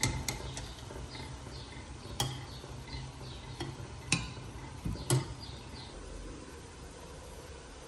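Wire spider skimmer clinking against a stainless steel stockpot and a ceramic plate while boiled chicken is lifted out of the broth and set down: a few sharp separate clinks, the loudest about two, four and five seconds in, over a low steady hum.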